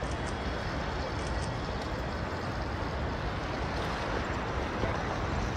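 Steady outdoor city noise with low wind rumble buffeting the microphone.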